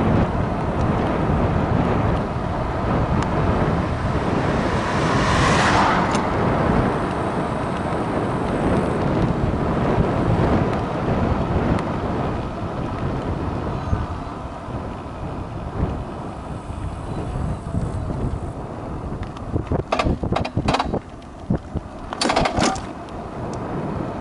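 Wind buffeting the microphone of a camera on a moving electric scooter, a steady low rush with road rumble and no engine note. It swells briefly about five seconds in, eases off after the halfway point, and a few sharp knocks and rattles come near the end.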